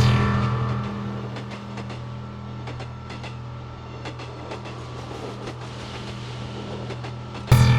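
A train passing: a steady low drone with scattered clicks. It swells suddenly at the start and again near the end.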